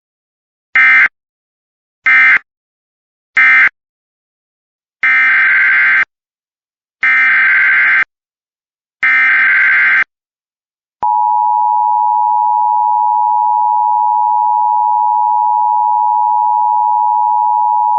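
Emergency Alert System tones. First come three short bursts of SAME digital data, the end-of-message code closing the previous alert. Then come three bursts of about a second each, the SAME header of the next weather warning. About eleven seconds in, the steady two-tone EAS attention signal starts.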